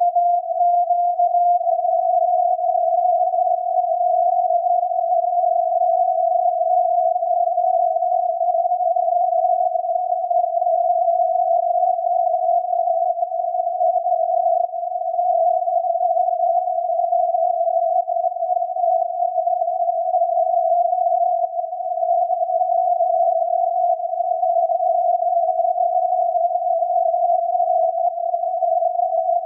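The 17.2 kHz VLF signal of SAQ, the Grimeton Alexanderson alternator transmitter, received by radio and heard as a continuous unkeyed tone around 700 Hz. The tone is slightly rough and wavers a little in pitch.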